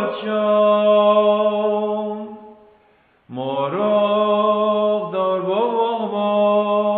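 A single unaccompanied voice chanting a Syriac hymn in long, held notes. The chanting fades out a couple of seconds in, breaks off briefly, and starts again about three seconds in.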